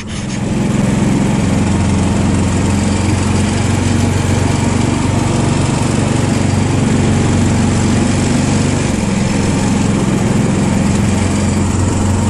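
Small engine of an off-road vehicle running steadily at an even pace while being driven, heard close up.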